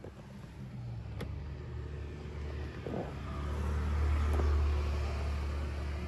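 A car on the road, its engine and tyre noise swelling about halfway through and easing off near the end, over a steady low rumble.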